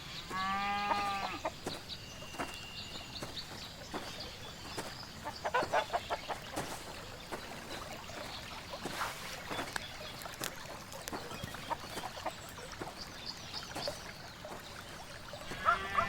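Farmyard fowl: chickens clucking here and there, with a drawn-out call about half a second in and another near the end, over a steady faint high-pitched tone.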